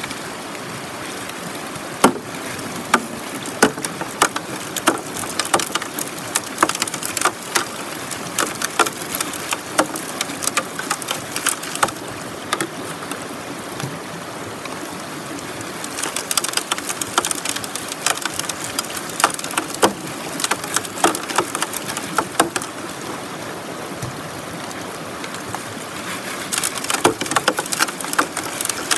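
River water rushing through an aluminium gold sluice box, with gravel and small stones poured from a bucket clattering and ticking against the metal as they wash down the riffles. The clatter comes in dense runs between steadier stretches of flowing water.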